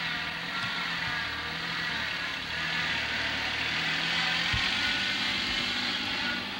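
Small farm tractor's engine running steadily as the tractor drives along.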